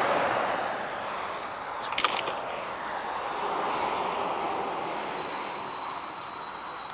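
Highway traffic noise from a vehicle passing and fading away, with a brief clatter about two seconds in.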